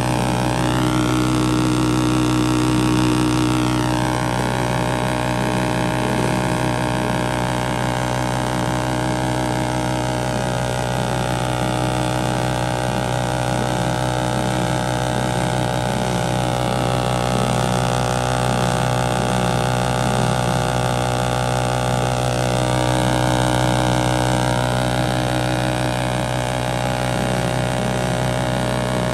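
Motorcycle engine held at high, steady revs during a stationary burnout, its rear tyre spinning against the road. The pitch eases slightly about four seconds in, then holds.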